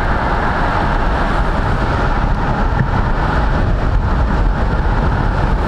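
Steady road and wind noise from a car driving at highway speed.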